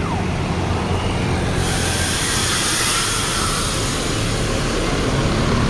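Tour bus engine running steadily at low speed, joined about a second and a half in by a loud, steady hiss that lasts to the end.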